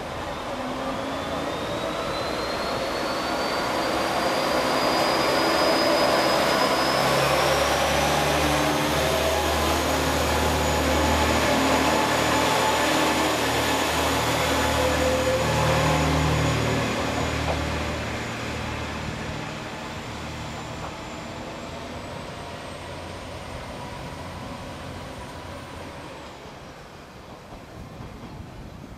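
Diesel engines of two coupled JR West KiHa 40 railcars pulling away from a station. The engine rumble builds as the railcars pass, then fades as they move off into the distance. Over it a high whine climbs in pitch in steps and stays high until it stops near the end.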